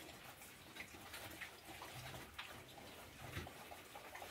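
Faint pigsty sounds: scattered light ticks and scuffs of piglets moving and rooting on a wet concrete floor, with a few soft low grunts about two to three and a half seconds in.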